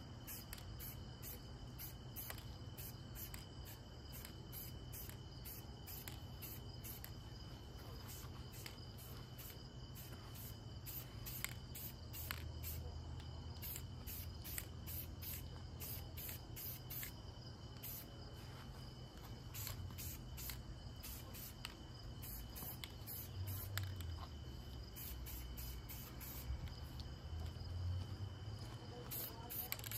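Insects chirping in a fast, steady pulsing rhythm, with a low rumble underneath.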